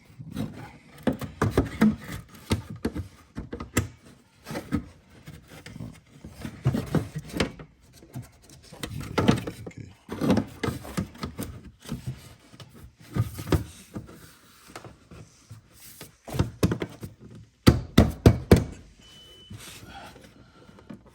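Composite rock guard pieces being handled and fitted: irregular rubbing, thunks and knocks, with a quick run of sharp knocks about three-quarters of the way through.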